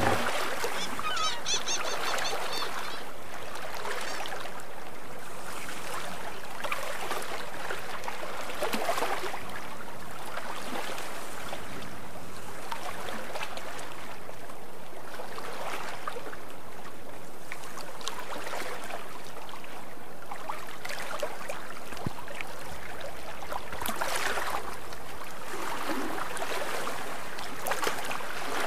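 Water rushing and sloshing along a sailboat's hull under way, as a steady wash that swells and eases irregularly.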